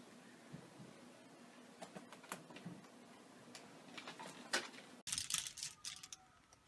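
Scattered light clicks and taps over faint room noise, coming louder and closer together after an abrupt change about five seconds in.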